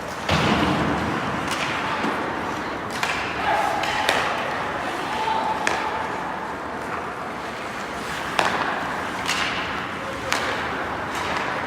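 Ice hockey game sounds: skates scraping over the ice, with a heavy thud against the boards just after the start and sharp stick-and-puck clacks every second or so, under the voices of people at the rink.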